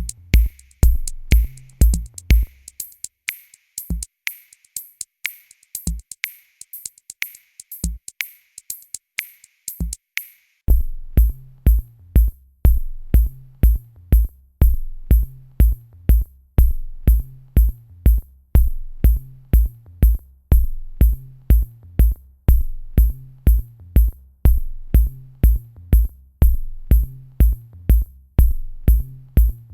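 Electronic music driven by a drum-machine beat, with steady sharp clicks over low kick thumps about twice a second. For the first ten seconds or so the kicks thin out to one every two seconds under a repeating higher tone, then the full beat comes back.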